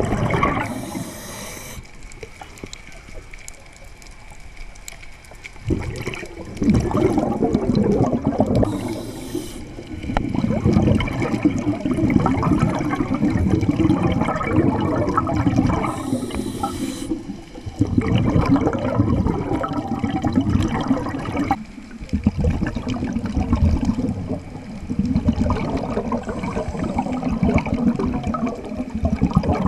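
Scuba diver breathing through a regulator underwater, heard over several breaths. Each inhale is a short hiss, and each exhale is a long rush of bubbling, gurgling exhaust bubbles.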